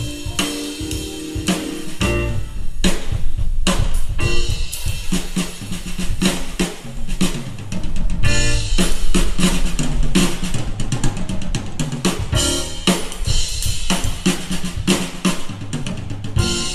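Live band playing an instrumental funk tune, the drum kit loud and busy with snare and bass-drum hits, and bass and guitar notes underneath.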